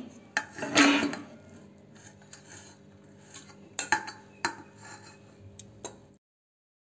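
A metal spatula scrapes and clinks against a steel kadai and a steel plate as cooked noodles are pushed out of the pan. There is a louder clatter about a second in, then a few sharp clinks. The sound cuts off about six seconds in.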